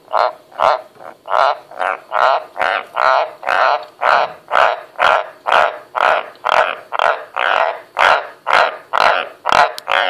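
White's tree frogs croaking in a long, regular series of short calls, about two to three a second.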